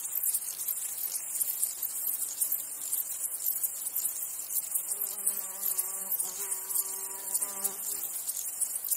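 Insects chirring in a high, rapidly pulsing chorus, with a flying insect buzzing close by for about three seconds past the middle.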